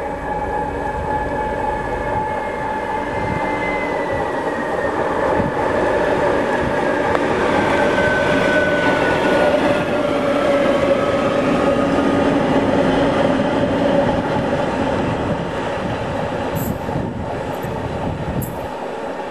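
TEM2UM shunting diesel locomotive running past close by. Its engine and running gear are loudest around the middle of the pass, with a whine that slides down in pitch. A few brief, sharp, high squeaks come near the end as it moves away.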